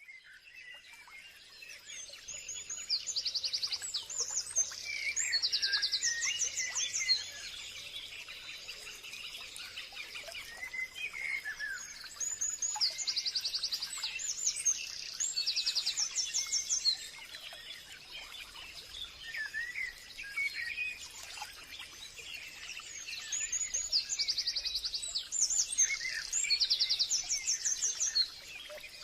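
Forest birds singing and chirping, with a burst of rapid trilled song recurring about every ten seconds over scattered calls, and a faint steady high tone underneath.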